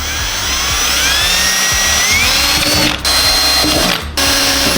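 Power drill drilling mounting holes: its motor whines up in pitch for about two seconds, then runs steadily. It stops about three seconds in, runs again for about a second, and starts once more near the end.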